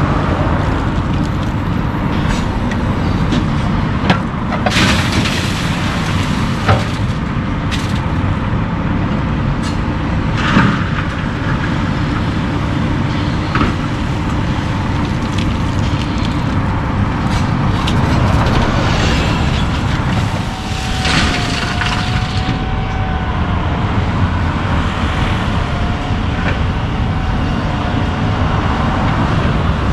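Diesel-powered tracked excavator working a pile of crushed rock, its engine running steadily under sharp clacks and crunches of rock in the bucket. A faint wavering whine comes in about two-thirds of the way through.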